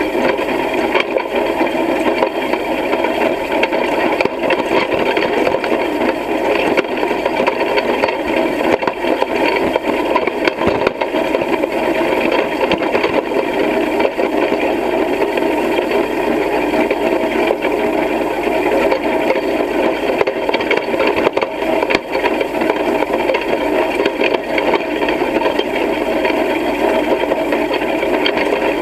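Hay rake clattering steadily as it is pulled through cut hay: a continuous dense rattle of many small clicks from its tines and frame.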